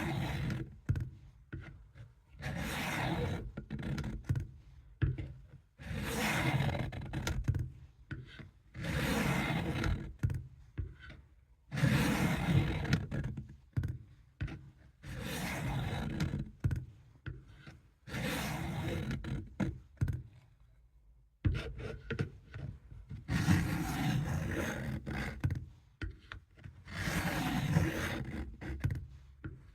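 Steel blade of a vintage Camillus knife drawn across a coarse sharpening stone in long grinding strokes, about one every three seconds, with small knocks between strokes.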